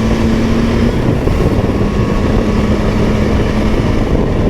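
Triumph Tiger 660's three-cylinder engine running at a steady pitch under way, with a heavy, constant rush of wind on the microphone.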